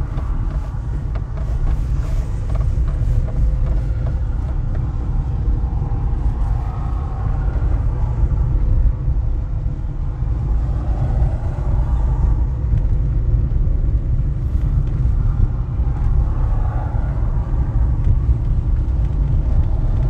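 Car driving on a dirt road, heard from inside the cabin: a steady low rumble of tyres and engine.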